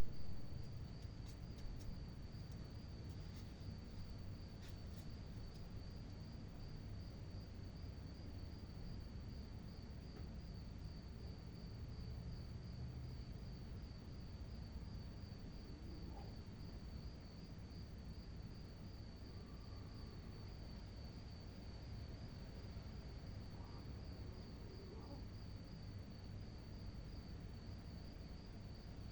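Cricket chirping at night in a continuous, rapidly pulsed trill on one steady high note, over a low background rumble. A few faint clicks in the first few seconds.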